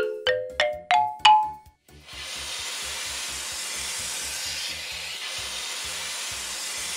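A quick rising run of xylophone notes, then about two seconds in a steady spraying hiss from a cartoon car-wash nozzle starts and carries on, over background music with a soft low beat.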